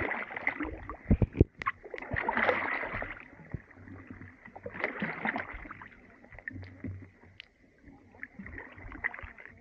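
Kayak paddles pulling through water thick with slush and brash ice: three splashy, hissing strokes with sharp knocks in between, growing quieter after about six seconds.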